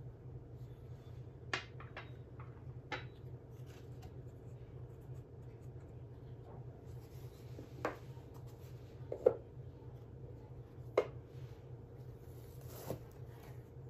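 Porcelain tea cups and cardboard gift boxes being handled on a glass tabletop: about seven light knocks and clicks a second or more apart, the loudest two in the second half, over a steady low hum.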